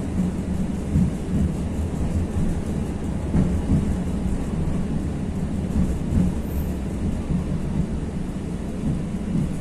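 71-623-02 (KTM-23) tram running along the track, heard from inside the car: a steady low rumble of wheels and traction drive with small irregular knocks.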